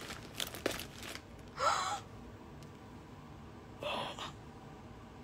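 A woman gasping twice, about two seconds apart: short breathy catches of breath, the first with a brief rising voiced note. There are faint light clicks of handling before them.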